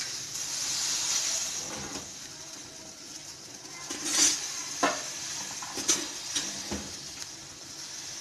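A steel pot of water with green tea leaves and whole spices at a rolling boil on a gas burner: a steady bubbling hiss. There are a few sharp clicks between about four and seven seconds in.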